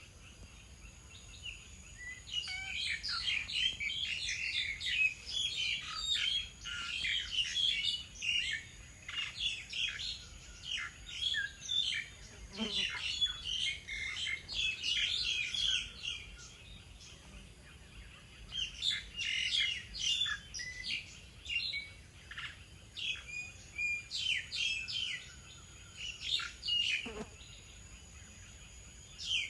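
Several small birds chirping and twittering in quick short notes, in busy bursts with a few quieter gaps.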